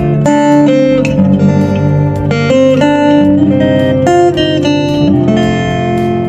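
Acoustic guitar played through a DI box preamp into an amplifier, a picked melody of single notes ringing over held chords. The tone controls are turned up for a bigger sound.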